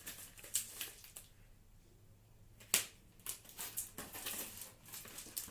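Board game box contents being handled: scattered rustles and light taps of cardboard and paper, with one sharper knock a little before the middle.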